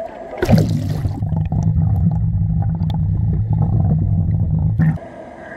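A splash as the camera goes under river water, then about four seconds of muffled underwater sound: a steady low rumble with no highs. It cuts back to open-air sound near the end as the camera surfaces.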